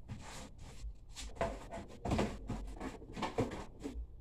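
A cardboard box being handled and set down, with a series of short knocks and scrapes, the loudest about two seconds in and again a little past three seconds.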